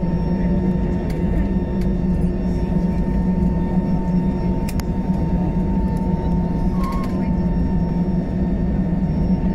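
Steady cabin noise of an Airbus A320 taxiing with its engines at idle: a low hum with a thin steady whine above it. A couple of faint clicks come about five and seven seconds in.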